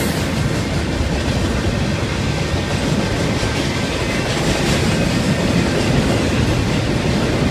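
Union Pacific intermodal freight cars, double-stack container cars and then trailers on flatcars, rolling past with a steady noise of steel wheels on rail.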